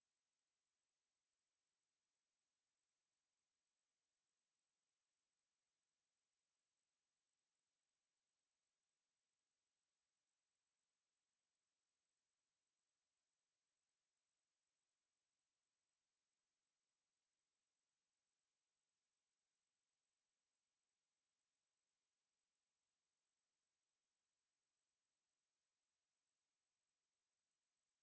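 A steady, unbroken 8457 Hz sine-wave test tone, a single high-pitched pure tone held at constant pitch and level, of the kind played to test or shake dust and water out of a speaker.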